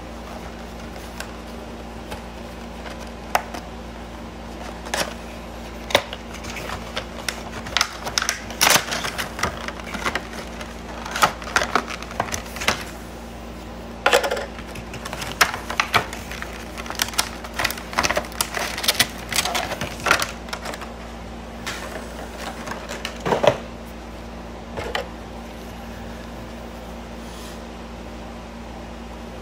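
A Funko POP vinyl figure's cardboard window box and clear plastic insert being opened and handled: irregular clicks, crackles and rustles that stop a few seconds before the end, over a steady low hum.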